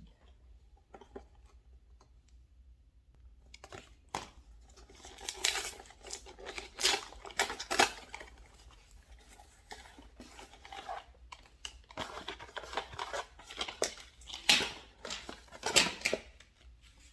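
A shipping package being opened by hand: irregular tearing and crinkling of packaging, starting about three and a half seconds in and going on in bursts nearly to the end.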